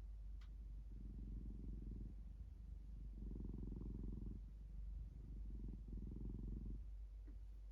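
Domestic cat purring close up, in stretches of about a second with short pauses between them as it breathes in and out.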